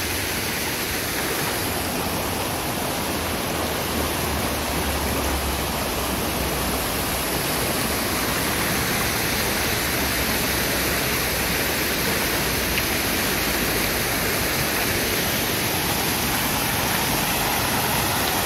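Spring water rushing steadily, a constant even hiss of flowing water.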